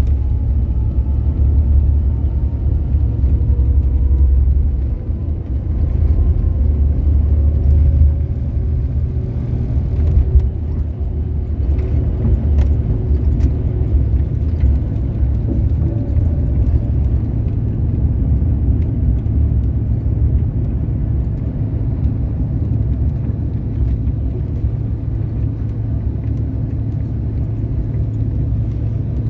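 Inside the cabin of a CRJ900 at take-off thrust, its rear-mounted GE CF34 turbofans running with a heavy low rumble that is strongest for the first several seconds, as the jet goes from the runway into the climb. Faint fan tones rise slowly in pitch near the start, and there is a single thump about ten seconds in.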